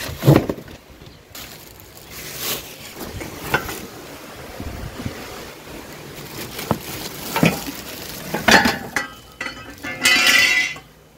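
Plastic wrapping rustling and crackling as plastic-wrapped metal swing-frame tubes are handled and shifted in a cardboard box, with scattered light knocks and clinks. A longer burst of crackling comes about ten seconds in.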